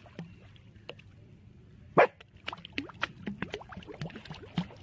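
A dog standing in a shallow inflatable pool, splashing the water with its front paws: quick irregular splashes, with one louder sharp hit about two seconds in.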